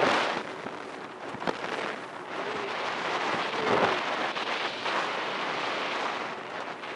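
Rushing wind and water noise aboard a boat under way, with wind buffeting the microphone; a loud gust at the start, then a fluctuating hiss.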